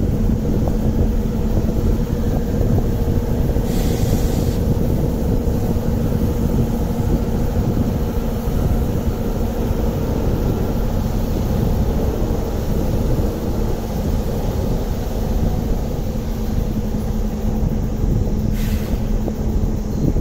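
Small diesel shunting locomotive running with a steady engine hum and low rumble as it creeps along the depot tracks. A short hiss comes about four seconds in and again near the end.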